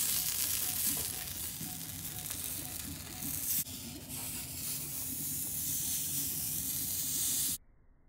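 Steady hiss and sizzle from a hot, freshly soldered copper pipe joint at a shower valve being wiped down. It cuts off suddenly near the end.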